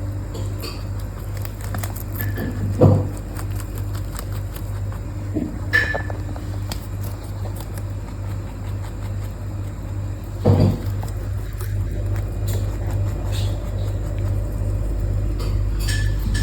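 Mini lop rabbit chewing basil loudly, a rapid, even munching with faint crisp crunches. Twice, about three seconds in and again near eleven seconds, there is a louder short low sound.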